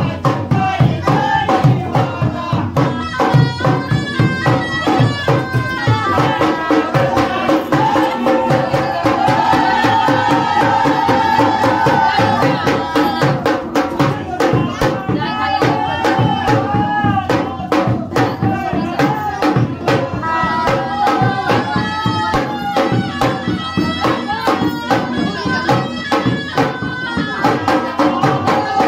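Traditional Indian folk music: fast, dense drumming under a held, wavering melody line.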